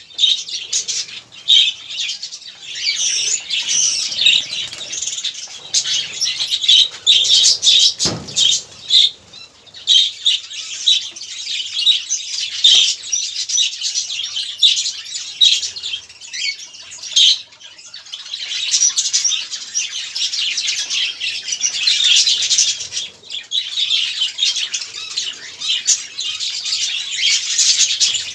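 A flock of budgerigars chattering and warbling, a dense, unbroken stream of short, high chirps with wing flutters now and then. A single knock comes about eight seconds in.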